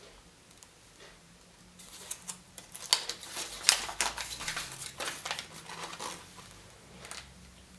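Hands unwrapping sweets and surprise-egg toys: crinkling wrapper and sharp plastic clicks in a busy stretch from about two seconds in to about six seconds in.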